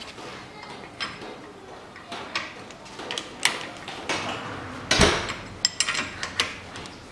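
Metal hand tools clinking and knocking on a front suspension strut's top mount as the centre nut is put on and turned down on the shock absorber rod, during reassembly with a new top-mount bearing. The loudest knock comes about five seconds in, followed by a quick run of small clicks.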